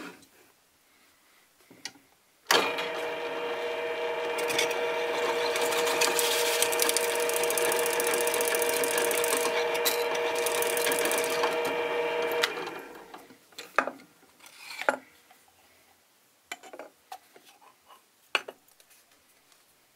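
A benchtop drill press starts suddenly and runs for about ten seconds with a steady whine, its bit boring a hole through a plastic ping pong ball held in a 3D-printed jig. It then shuts off and fades out over about a second. A few light clicks and knocks follow as the plastic jig and ball are handled.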